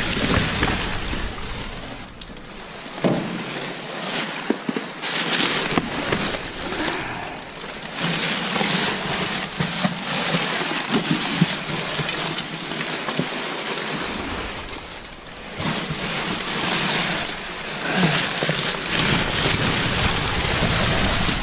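Plastic film and bags crinkling and rustling as gloved hands rummage through rubbish in a dumpster, with small knocks of cardboard and plastic pieces here and there.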